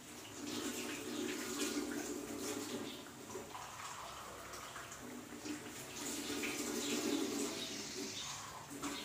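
Thick tomato-and-chilli sambal with potatoes bubbling as it simmers in a steel wok, with many small pops.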